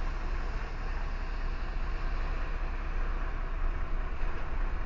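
Lorry's diesel engine idling steadily with a low, even rumble, heard from inside the cab while the truck stands still.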